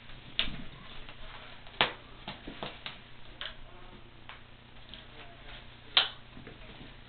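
Kittens playing with a wand toy: irregular sharp clicks and taps, the loudest about two seconds in and again near six seconds.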